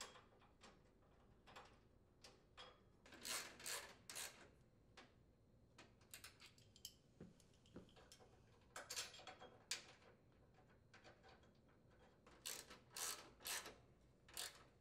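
Faint metal clicks and short runs of quick ratchet clicking as mounting bolts are fitted and tightened with a socket ratchet wrench.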